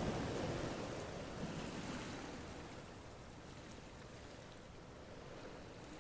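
A steady rushing noise, like surf, that fades down over the first three seconds and then stays faint.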